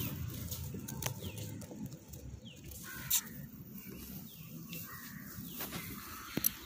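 Birds calling: short chirps that slide downward in pitch, repeated several times, over a faint rustle with a few soft clicks.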